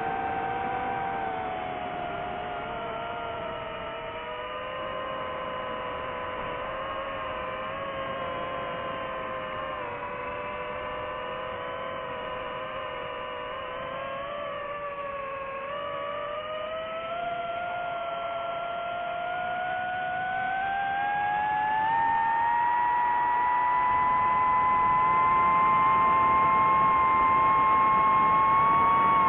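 DJI FPV drone's motors and propellers whining, a chord of several tones that dips a little, then climbs steadily in pitch over about eight seconds and holds high and louder near the end.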